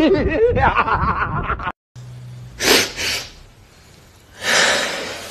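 A man laughing hard in quick, repeated bursts, cut off abruptly. After a brief silence, a woman takes two loud, breathy breaths over faint room tone.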